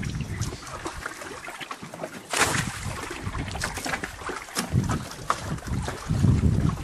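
Water splashing and lapping around a small fishing boat, with wind gusting on the microphone, heaviest near the end.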